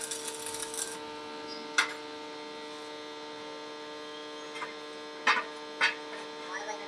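Stick-welding arc crackling for about the first second, then stopping, while the arc welder's transformer hums steadily. Three sharp knocks come through the hum, one about two seconds in and two close together around five and a half seconds.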